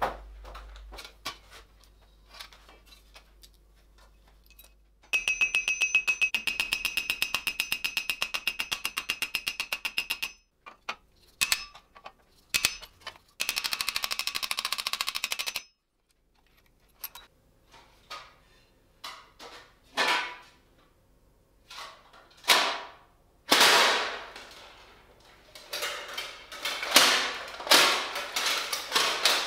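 Metalworking on steel armor plates: a power tool runs with a fast, even rattle and a steady whine for about five seconds, then a shorter burst a few seconds later. After that comes a run of separate sharp metal knocks and clanks of steel plates being struck and handled, coming thicker near the end.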